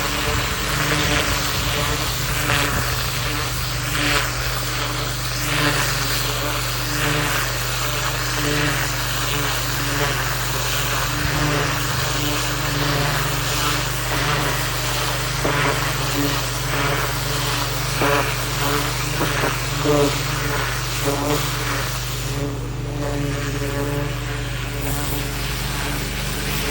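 Engine-driven pressure washer running steadily, its high-pressure water jet hissing as it blasts weeds out of gravel. The spray hiss drops away for a couple of seconds near the end while the engine keeps running.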